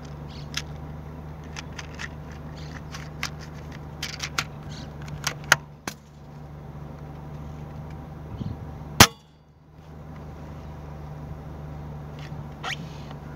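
A single sharp rifle shot about nine seconds in, the loudest sound, fired at a partridge through the scope. Before it come scattered small clicks and knocks, with a sharper click about halfway, over a steady low hum.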